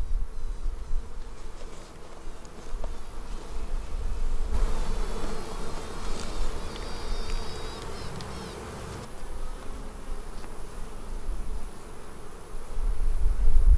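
Honeybees buzzing on an open hive frame. The buzz swells for a few seconds in the middle, under a low rumble that is louder at the start and near the end.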